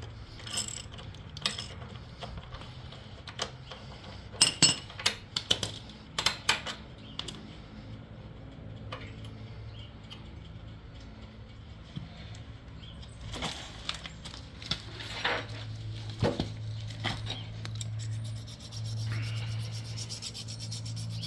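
Metal clinks and knocks of tools and hardware as the stock footpeg is unbolted, then steady rubbing strokes from about halfway through as a washer is sanded or filed to take off rough burrs.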